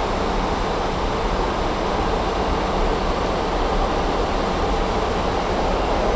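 Steady rushing noise of airflow and engines heard in the flight deck of an Airbus A300-600 in flight, even and unchanging.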